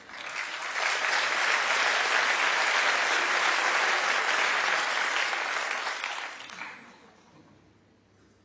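Audience applauding. It swells up within the first second, holds steady, then dies away about seven seconds in.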